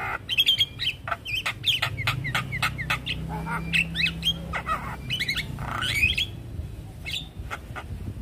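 Javan myna (jalak kebo) calling: a rapid, busy run of sharp clicks, chattering notes and short whistles that thins out near the end.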